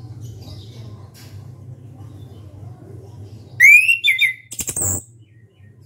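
Chestnut-capped thrush singing one short, loud phrase about three and a half seconds in: a few quick whistled notes that sweep up and down, ending in a harsh rasp. A low steady hum sits underneath.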